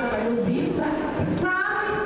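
Women's and children's voices with drawn-out, sung-sounding held notes, over the overlapping chatter of a crowded hall.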